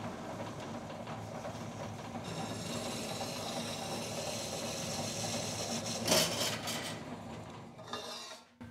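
DoAll vertical metal-cutting bandsaw running, its blade cutting through a steel tube pushed in by hand; the hissing cutting noise grows after about two seconds, with a louder rattling burst about six seconds in, and the sound dies away near the end.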